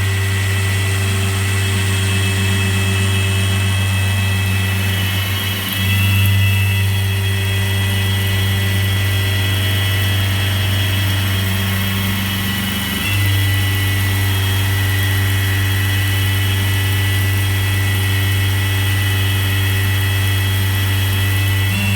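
CNC-converted Optimum BF 46 mill running a machining job: a steady low motor hum with high servo and spindle whine. The tone shifts briefly about six seconds in and again about thirteen seconds in, as the axis moves change.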